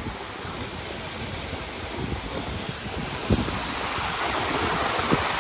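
Small waterfall splashing over rocks into a pond, a steady rush of water that grows a little louder toward the end, with a few brief low thumps.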